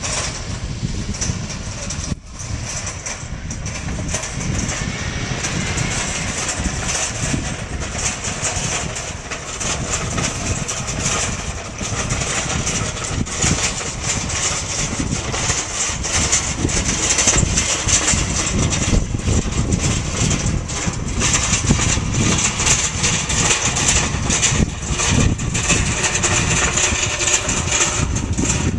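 Metal wire roll cage trolley rattling and clattering without a break as it is pushed over tarmac. It is loud and very noisy.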